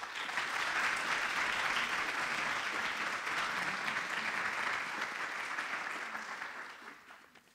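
Audience applauding, a steady clapping that dies away over the last second or so.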